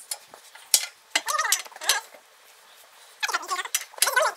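Short metal clinks of tools on the bale spike's tine and nut as it is tightened, with a sharp clink about three-quarters of a second in and voices in between.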